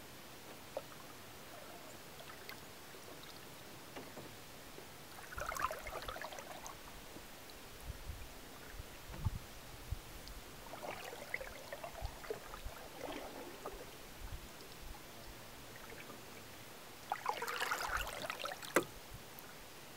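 Canoe paddle pulled through calm lake water in three slow strokes several seconds apart, each a swish and trickle of water off the blade, the last stroke the loudest.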